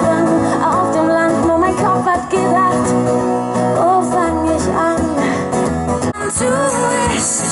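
Live amplified music: a woman singing a wavering melody into a microphone over strummed acoustic guitar, heard through a stage PA.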